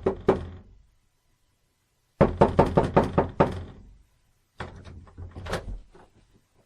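Rapid, heavy knocking on a door in three bursts. The first burst ends about half a second in, a loud burst of about eight quick knocks comes about two seconds in, and a quieter, more ragged burst follows near the end.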